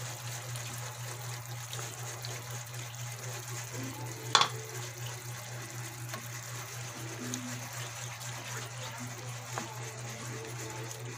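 Tomato sauce simmering in a pan as cream is poured in and stirred with a wooden spatula, over a steady low hum. One sharp knock about four seconds in.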